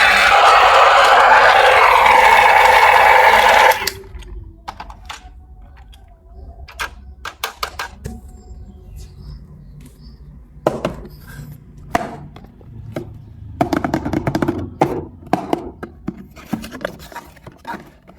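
A loud electronic toy sound with wavering, gliding tones cuts off abruptly about four seconds in. After it come scattered clicks, knocks and short scrapes of plastic toys being handled.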